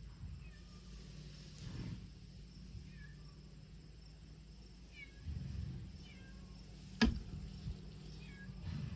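A cat meowing a few short times close to the phone, with dull bumps and one sharp knock about seven seconds in.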